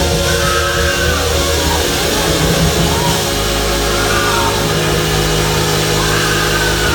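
Loud, steady band music: sustained low bass notes that shift about three seconds in, under a higher melody line that rises and falls.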